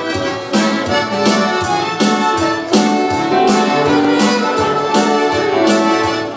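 Accordion playing a melody with keyboard accompaniment over a steady beat of about two strokes a second.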